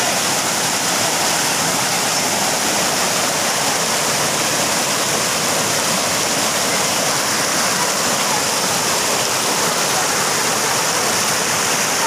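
Steady rush of white water tumbling over the rocks of a low, wide waterfall, heard close up.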